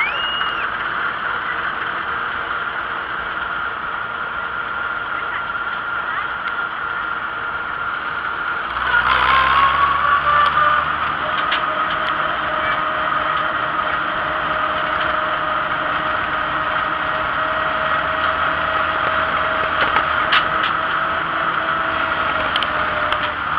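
Vintage tractor engine running steadily at road speed, heard from on the tractor. About nine seconds in it gets louder and a deeper rumble comes in and stays.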